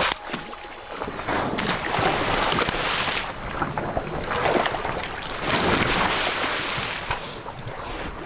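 Muddy swamp water sloshing and splashing right against a floating camera, heard close on its microphone, in several surges.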